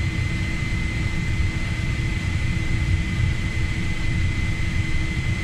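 Steady machinery hum in a Gulfstream G450 cockpit while the aircraft sits on the ground with its systems powered. There is a low rumble with two constant whining tones, one high and one low, that do not change.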